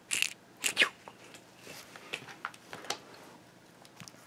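Handling noise: two quick rustles in the first second, then scattered soft clicks and rustles, from a hand puppet being moved and a picture book being picked up.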